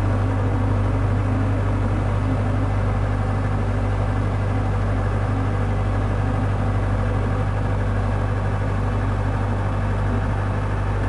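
Steady, loud low rumble with a hiss above it: the outdoor storm sound picked up by a phone filming a waterspout over open water.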